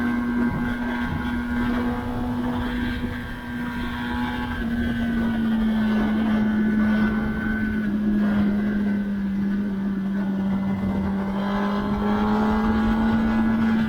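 2021 Kawasaki ZX-10R's 998 cc inline-four engine running at a steady speed while the bike is ridden, its pitch easing down slightly midway and picking back up near the end.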